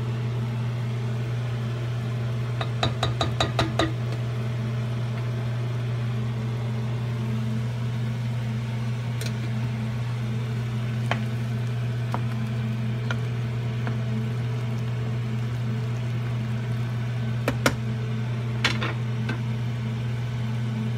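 Stovetop cooking: a steady low hum over the bubbling of pots on the boil. About three seconds in there is a quick run of clicks, and near the end a few sharp knocks, from a spoon against the pots.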